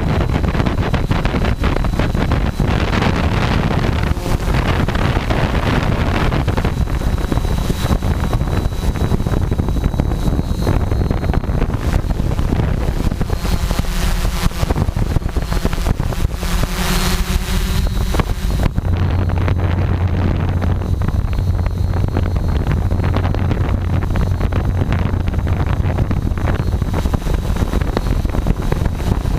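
Wind buffeting the microphone of a GoPro carried on a Tarot 680 hexacopter, over the steady hum of the drone's electric motors and propellers in flight. About two-thirds of the way through the sound turns duller, with a steady low hum underneath.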